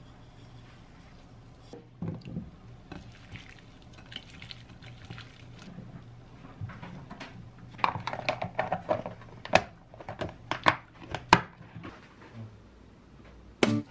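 Hands tossing and squeezing wet, chili-dressed julienned radish in a glass bowl, with a quick rattle of sesame seeds from a glass jar early on. The mixing is at its loudest in the second half, a run of wet squelches and sharp clicks against the glass.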